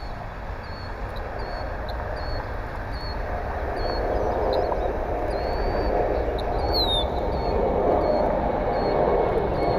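Jet engine noise of a departing Airbus A320 airliner, a rumble that grows steadily louder.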